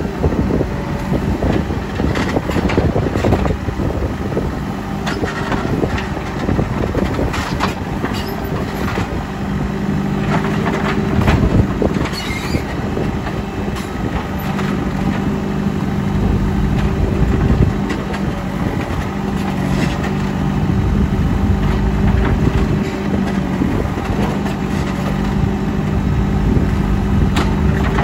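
JCB 3CX backhoe loader's diesel engine running steadily while the machine works, its note shifting a little, with scattered knocks.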